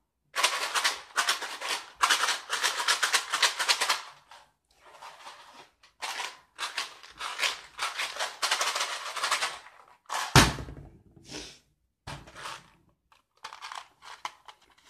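Hard bits rattling inside a clear plastic container shaken by hand: rapid clicking in several bursts with short pauses between them. A single heavy thump comes about two-thirds of the way through.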